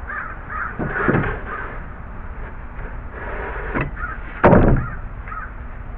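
Knocks of wood being worked on while old deck boards are pried loose and taken off: a few separate knocks, the loudest about four and a half seconds in.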